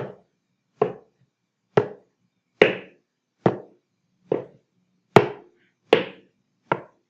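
Shoe stomps, nine sharp single thuds evenly spaced a little under a second apart, recorded through a smartphone microphone.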